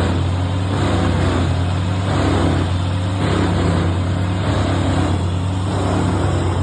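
Large wood chipper's diesel engine running steadily under load, with a rough chipping noise from the feed and drum over the engine's low drone.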